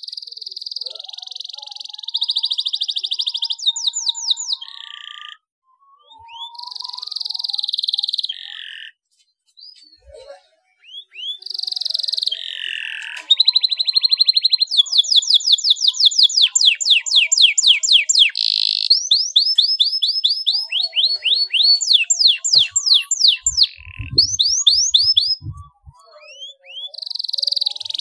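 Domestic canary singing: phrases of buzzy rolls and fast trills of quickly repeated rising notes, broken by short pauses.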